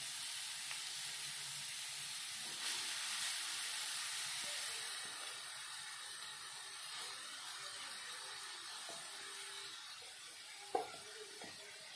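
Freshly grated carrot sizzling in hot ghee in a kadai, the hiss easing off after about five seconds. A single short knock comes near the end.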